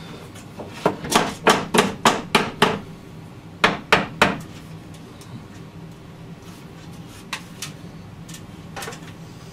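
Hammer tapping a wooden window-ledge frame into a basement window's drywall return, seating it so it pinches and holds. A quick run of about seven taps, then three more, then a few lighter knocks near the end.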